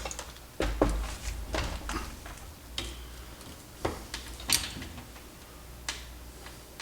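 Scattered light clicks and taps of small metal parts and a tool being handled as an amplifier's heat sink and output transistors are fitted back in place, about eight separate clicks over a steady low hum.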